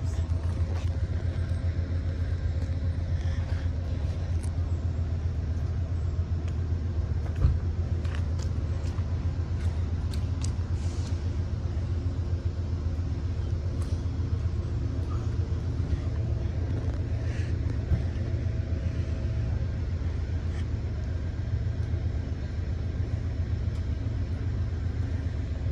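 Amtrak Superliner passenger train rolling out along the track: a steady low rumble with a faint hum, and two sharp clicks, about seven and eighteen seconds in.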